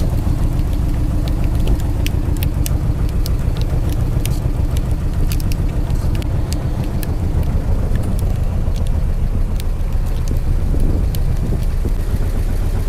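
Fishing boat's engine running steadily with a low rumble and hum, with scattered sharp ticks over it.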